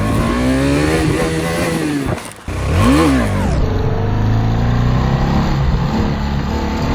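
Single-cylinder motorcycle engine revved hard in quick blips, the revs shooting up and falling straight back, then running on steadily with light throttle.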